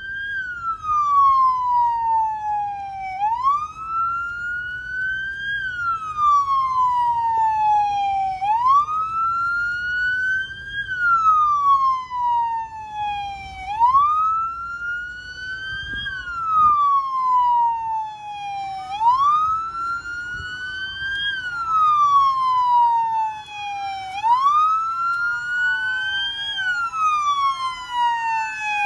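Police car sirens on wail: a slow rise and fall roughly every five seconds. A second siren joins about two-thirds of the way in, out of step with the first.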